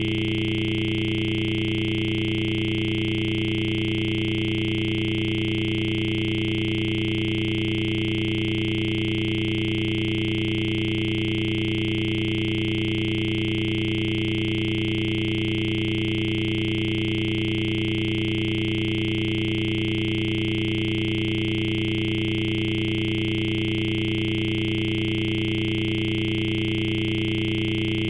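Steady electronic tone, several pitches held together without any change.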